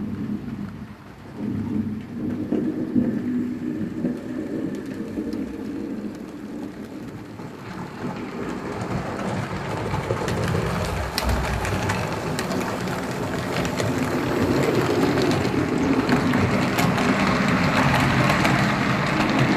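HO-scale model trains running on the layout's track: small electric motors humming and wheels clattering over the rails. The rolling noise grows louder in the second half.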